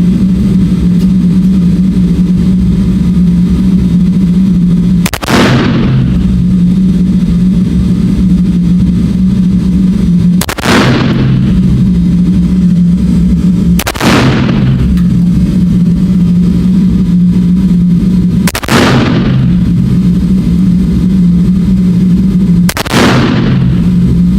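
Five single gunshots from a large firearm, spaced about four to five seconds apart, each ringing out briefly after the crack. A loud steady low hum fills the gaps between shots.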